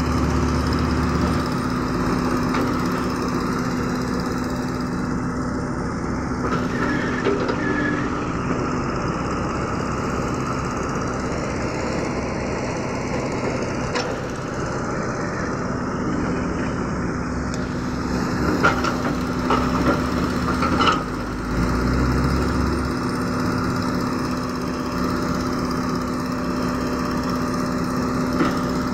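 Caterpillar E120B hydraulic excavator's diesel engine running steadily as it digs and swings. A few sharp knocks come about two-thirds of the way through.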